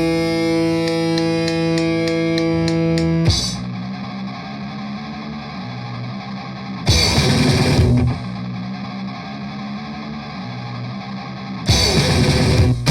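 Grindcore recording of distorted electric guitar music. A held, ringing chord with quickening clicks over it cuts off about three seconds in. A quieter riff follows, broken twice by loud full-band blasts, each about a second long.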